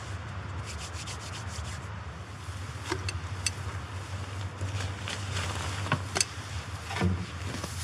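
Rustling and handling of camping gear, with a few short clicks and knocks, over a steady low background rumble.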